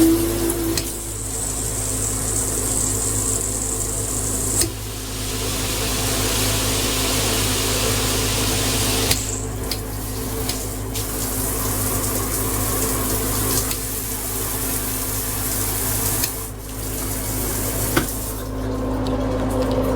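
Water spraying steadily from a WarmSpray fixed shower head on a low-pressure supply. The hiss of the spray changes in tone a few times, about 5, 9 and 16 seconds in.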